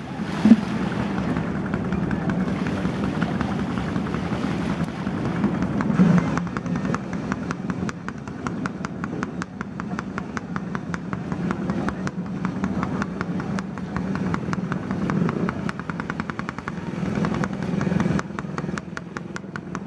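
An engine running steadily with a fast, even knocking beat, typical of a small boat engine idling close by. A loud splash comes about half a second in.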